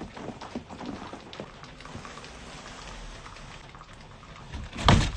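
Footsteps crunching through fresh snow, a dense run of small irregular crackles and crunches. Near the end comes a sudden loud rustle.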